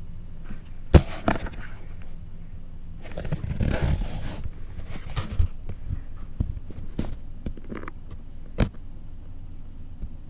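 Handling noise of a camera being picked up and carried: scraping rustle with a sharp knock about a second in and another near the end.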